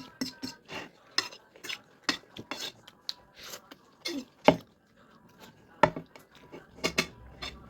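Cutlery clicking and scraping against a dish in a quick, irregular series of sharp taps while food is eaten.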